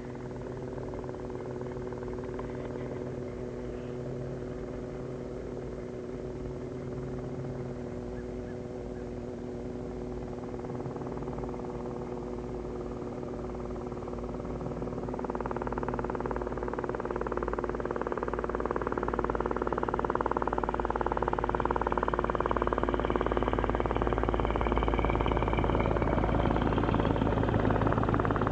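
Robinson R22 helicopter running, with a steady engine and rotor sound that grows louder from about halfway through.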